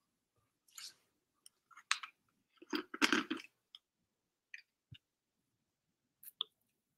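A few short rustling noises and sharp clicks close to the microphone, the loudest run of rustling about three seconds in and a last click near the end.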